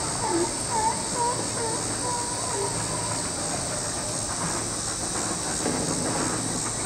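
Outdoor ambience: a steady high-pitched hiss throughout, with a short chirp repeating about twice a second for the first three seconds and then stopping.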